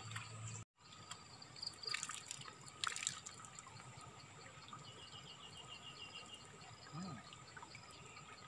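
Water trickling and dripping off a square bamboo lift net as it is hauled up out of the pond, with two short knocks about two and three seconds in. Insects trill steadily throughout.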